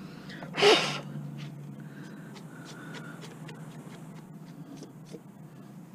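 A man's short, sharp exhale of breath about half a second in, over a low steady hum, followed by faint scattered ticks.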